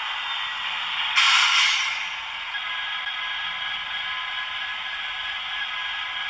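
Model Class 66 locomotive's DCC sound decoder playing diesel engine sound through its small speaker: a steady engine note with a short burst of hiss about a second in.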